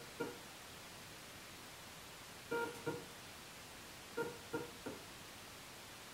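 Motor of a home-built antenna tracker whining in short pitched bursts as it makes small turns: one just after the start, two about two and a half seconds in, and three in quick succession a little past four seconds.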